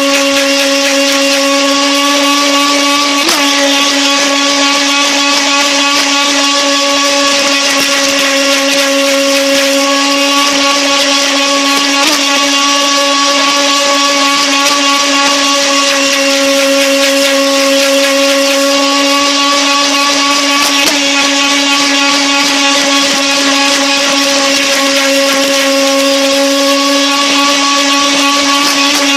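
Electric motor of an FT009 RC racing boat running at a steady high pitch, heard close up from a camera mounted on the boat's deck. The whine holds one tone almost without change, with a few faint ticks along the way.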